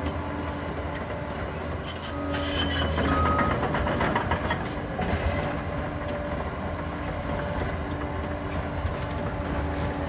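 Liebherr PR 746 crawler dozer at work, its diesel engine running steadily. About two seconds in, a louder, rougher stretch of rapid clatter and scraping lasts a couple of seconds, typical of steel tracks and blade working the ground.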